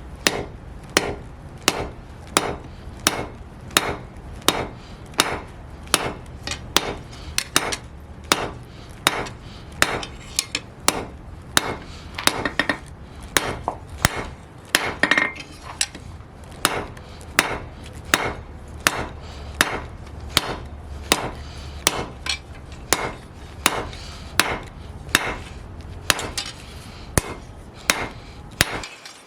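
Hammer blows on steel flat bar being forged on an anvil, struck in a steady rhythm of about two blows a second. A steady low hum runs underneath and cuts out near the end.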